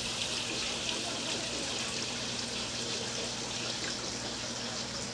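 Water running steadily, with a faint low hum underneath.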